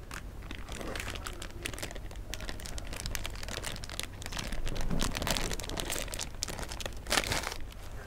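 Plastic ice-pop wrappers crinkling and tearing as they are ripped open by hand: a dense run of sharp crackles, with the loudest burst near the end.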